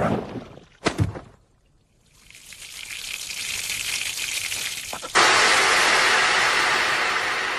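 Anime sound effects: two sharp swishing hits in the first second or so, then a hiss that builds from about two seconds in, and at about five seconds a sudden louder rush of water gushing out of a burst rooftop water tank.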